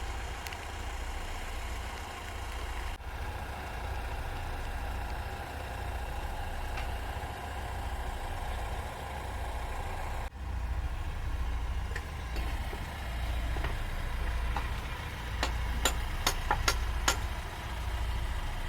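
Heavy diesel engine of recovery machinery running steadily at a low idle. Near the end comes a quick run of about six sharp clicks or knocks.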